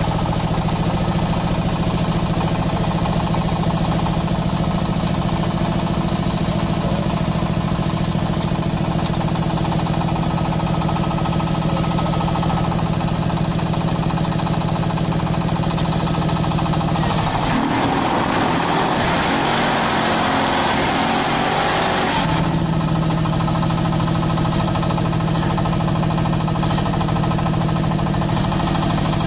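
The 15.2 kW diesel engine of a QT4-30 hydraulic block machine running steadily. A little past the middle, for about five seconds, its steady note drops out under a louder rushing noise, then it returns.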